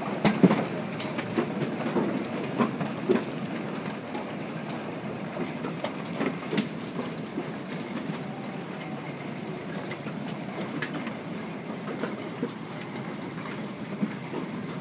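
Hailstorm: a steady clatter of small hailstones and rain pelting pavement and nearby surfaces, with sharper single hits scattered throughout, thickest in the first few seconds.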